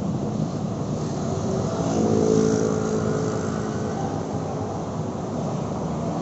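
Street traffic. A motor vehicle's engine passes close by, swelling about two seconds in and fading again by about four seconds.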